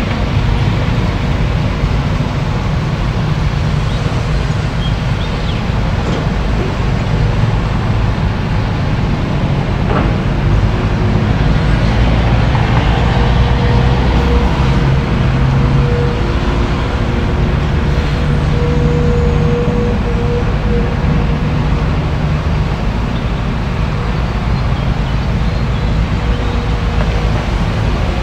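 Caterpillar tracked excavator's diesel engine running steadily under load as it works, with a single knock about ten seconds in and a thin steady whine joining from about halfway.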